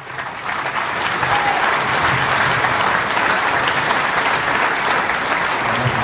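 A large audience applauding: a steady, dense wash of many hands clapping, swelling in over the first second.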